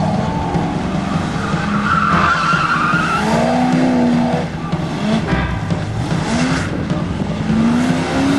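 Corvette's V8 engine revving hard in repeated rising sweeps as the car is driven through an autocross course, with a tire squeal about two seconds in.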